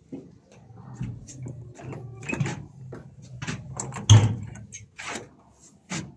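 Irregular clicks and knocks as a hand handles a round metal door lock and the plywood wall around it, the loudest knock about four seconds in.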